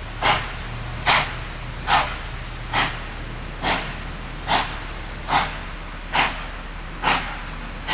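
Baldwin-built NSW 59 class 2-8-2 steam locomotive 5910 working a train, its exhaust beating out slow, even chuffs about six every five seconds, over a low steady hum.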